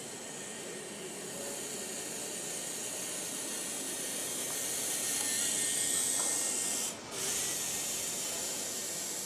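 A steady hiss, strongest in the highs, growing a little louder toward the middle and briefly dropping out about seven seconds in.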